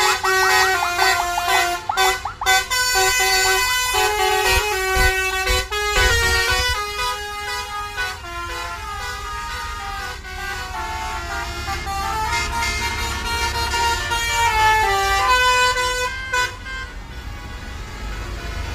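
Indonesian bus 'telolet' horn, a set of multi-tone air horns, playing a run of melodic notes, with fast warbling trills in the first couple of seconds. A low rumble runs underneath, and the horn notes grow fainter near the end.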